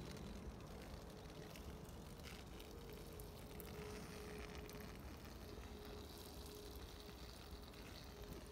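Faint outdoor background noise: a low rumble with a faint steady hum and a few soft clicks.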